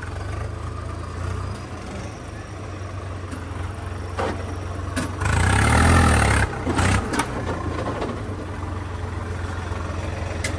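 Swaraj 855 tractor's diesel engine running under heavy load while pulling in a tractor tug-of-war, a steady low drone. About five seconds in, a louder rushing surge lasts about a second, with a few knocks around it.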